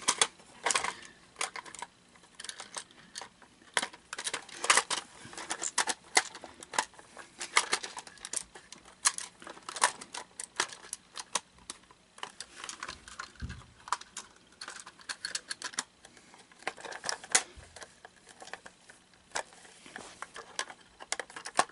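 Hard plastic housing of a Gemmy animatronic talking toilet being handled and pried at: many irregular clicks and taps of plastic on plastic, with one dull low thump a little past halfway.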